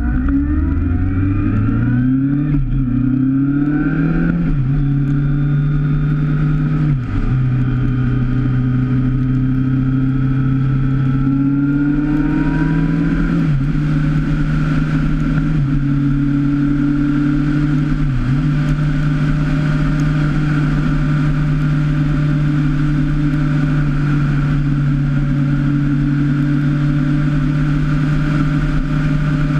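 Motorcycle engine accelerating hard through several upshifts, its pitch climbing and dropping back at each gear change, then holding a steady cruising note, with wind and wet-road rush.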